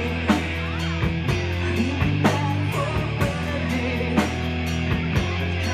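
Rock band playing live: a drum kit keeping a steady beat under guitar and sustained bass notes.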